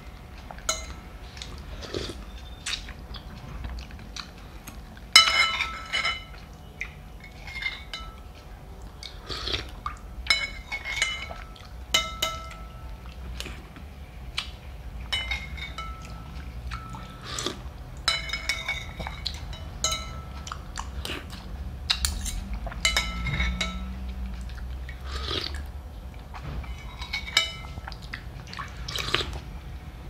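A spoon clinking and scraping against a soup bowl, many clinks ringing briefly, with soup being sipped between them at an uneven pace.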